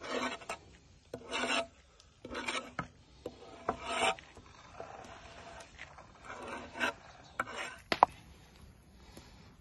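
Steel knife blade scraping along a wooden cutting board, sweeping chopped herbs off it in about five strokes of about half a second each, with a sharp knock near the end.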